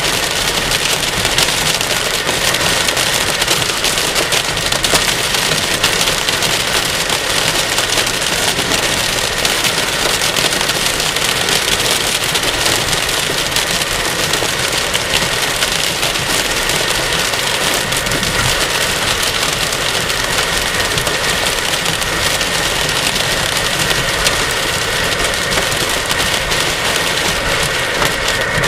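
Heavy thunderstorm rain coming down hard, a loud, even, unbroken hiss.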